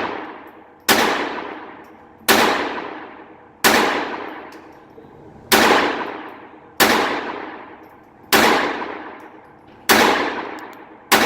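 Phoenix Arms .22 LR semi-automatic pistol fired eight times, one shot every second and a half or so. Each sharp report is followed by a long echoing decay.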